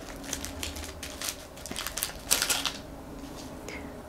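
Plastic cracker packet crinkling and rustling in short, irregular scrunches as it is torn open and a cracker is pulled out, loudest a little past halfway.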